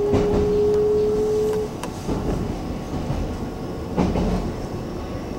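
Taiwan Railways EMU700 electric multiple unit running, heard from inside the car: a steady traction-motor whine rising slowly in pitch as the train gathers speed cuts off a little under two seconds in. Over the rumble, the wheels knock on rail joints a few times, loudest about four seconds in.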